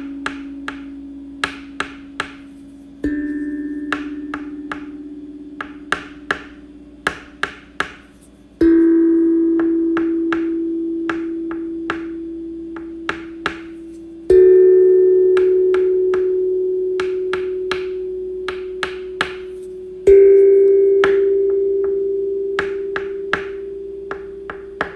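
A ringing tone struck about every five and a half seconds, each a little higher in pitch than the last and fading slowly. Sharp short clicks or taps come between the strikes, several a second at times.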